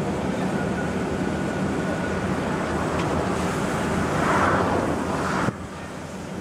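Rice mill machinery running with a steady drone and low hum. A rushing hiss swells about four seconds in, and the sound drops off abruptly about five and a half seconds in.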